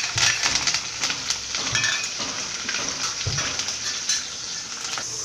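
Green chillies and curry leaves sizzling and crackling in hot oil with mustard and cumin seeds in a kadhai, loudest just as they go in, the first stage of a tadka. Utensils knock against the pan a few times.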